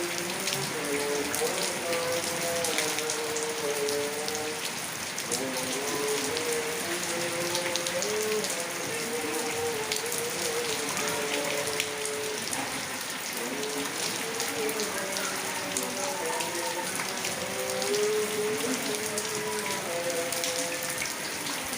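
Heavy rain falling in a steady hiss, thick with the patter of drops. A distant voice chants in long, wavering, drawn-out notes over it.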